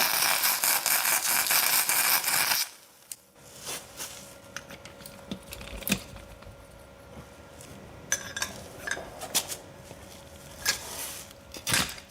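Electric welding arc crackling steadily for about two and a half seconds as weld is built up on a seized bolt, then cutting off abruptly. It is followed by scattered light metallic clicks and taps.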